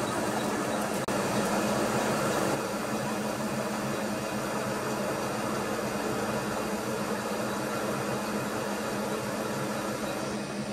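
Milling machine spindle running with a steady hum while a cutter drills and counterbores a metal plate, with cutting noise on top. The sound breaks off for a moment about a second in.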